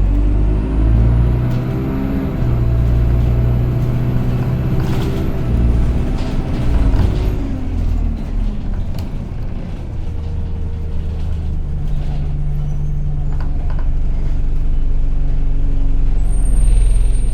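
Single-deck bus engine heard from on board, running with a high thin whine, the 'hoover' noise this bus is known for. The engine note falls over the first several seconds as the bus slows, then runs steadily and lower.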